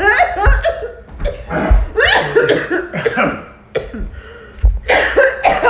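A woman coughing in several bouts, with a short lull a little under four seconds in.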